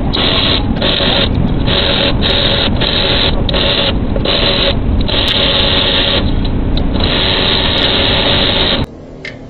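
Makita cordless ratchet motor running in short runs with brief pauses, driving the camshaft bearing-cap bolts on a Hyundai H1's D4CB diesel cylinder head. It stops abruptly near the end.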